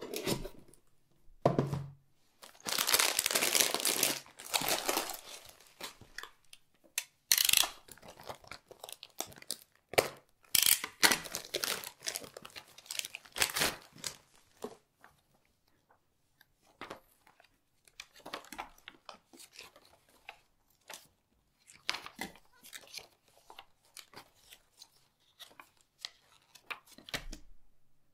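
Cardboard box and paper packaging being opened and handled, with several loud stretches of rustling and ripping in the first half. Lighter, scattered rustles and small taps of paper follow.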